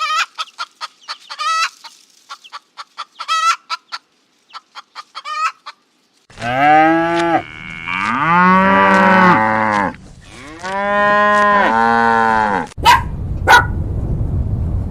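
A chicken clucking in quick, short calls, then, about six seconds in, a cow mooing in several long, drawn-out calls. Near the end, two short, sharp calls sound over a steady noisy background.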